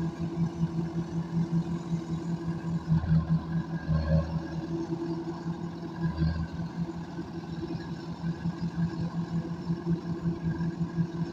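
Rice combine harvester running steadily with an even, pulsing engine hum.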